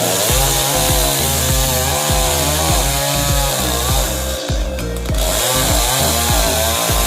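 Background music with a steady beat, bass line and gliding melody, over the steady high buzz of a running chainsaw that breaks off briefly about two-thirds of the way in.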